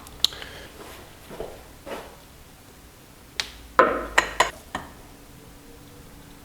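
Hand tools clinking on a car's front suspension: scattered sharp metal taps and knocks, then a quick cluster of about five clicks around four seconds in.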